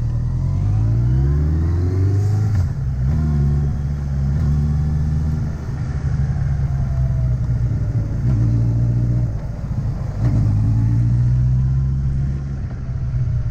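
A motor vehicle engine running under load. Its pitch climbs over the first couple of seconds, then breaks and settles again a few times.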